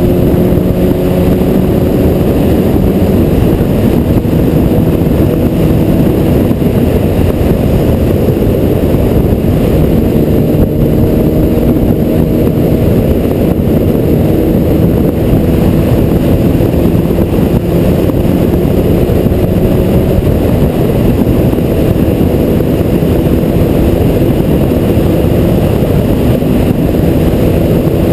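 Wind rushing over the camera microphone on a moving sport bike, mixed with the Honda CBR1000RR's inline-four running steadily at cruising speed, its pitch rising and falling gently.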